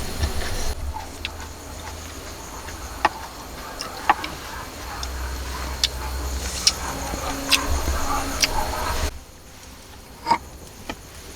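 Irregular sharp knocks and taps, roughly a second apart, over a low rumble. The background drops away abruptly about nine seconds in.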